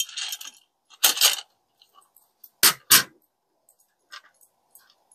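Hard parts of a rotating jewelry organizer being handled and fitted together: light rattles and clinks in the first second and a half, then two sharp knocks close together about three seconds in, followed by faint ticks.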